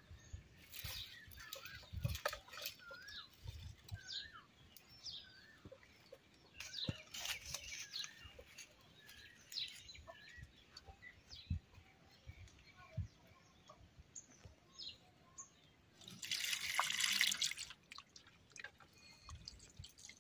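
Dry sticks and twigs crackling and rustling as a bundle of firewood is picked up and carried, with small birds chirping around. A longer burst of rustling comes late on.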